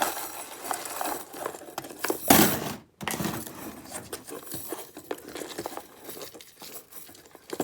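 Costume jewelry being handled and untangled: small clicks and clinks of metal chains and beads, with a louder rustle a little over two seconds in.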